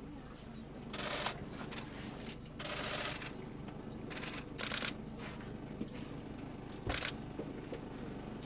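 Camera shutters firing in short rapid bursts, about five times, the longest lasting about half a second, over a low steady rumble.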